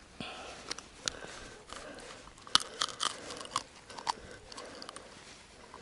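Hands working at a small pike's mouth to unhook it: a run of small clicks and crunches, the sharpest about two and a half seconds in.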